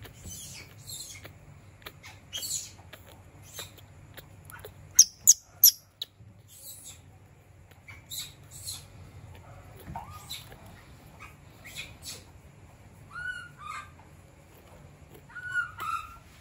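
Baby monkey giving a string of short, high squeaks, with three sharp, loud ones about five seconds in and a couple of wavering, lower calls near the end.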